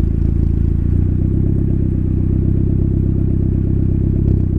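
Car engine running at a steady idle, low-pitched and even, with only a slight change in note about a second in.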